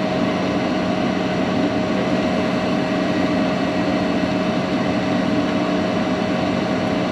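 A steady machine drone with a constant hum.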